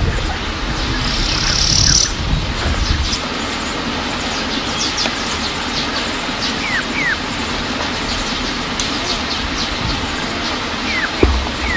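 Natural outdoor ambience: a steady hiss with a low rumble during the first three seconds, over which birds chirp. There are many short high calls and a few quick whistled notes around the middle and near the end.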